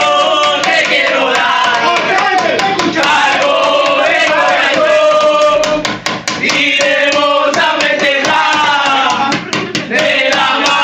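A group of men loudly singing a football supporters' chant together, many voices overlapping.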